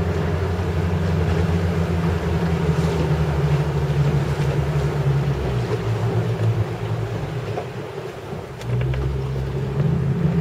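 Inflatable boat's motor running steadily under way, with water and wind noise. Past the middle the engine eases off and dips, then picks up again near the end.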